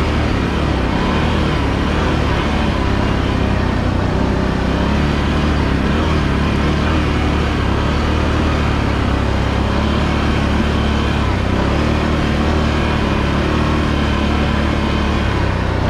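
Can-Am Renegade 1000 ATV's V-twin engine running steadily as it rides along a dirt trail, its pitch rising and falling a little in the last few seconds.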